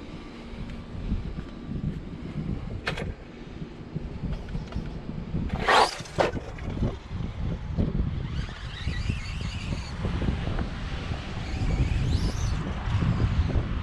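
Redcat Volcano EPX 1/10 electric monster truck with a brushless motor being driven hard, with low rumble from wind and rough ground. There is a sharp hit about six seconds in, and from about eight seconds on the motor whines, its pitch rising and falling with the throttle.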